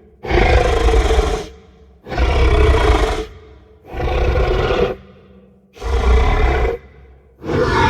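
A cartoon kaiju roar sound effect, a deep rumbling monster roar about a second long, played over and over: four times, with a fifth starting near the end.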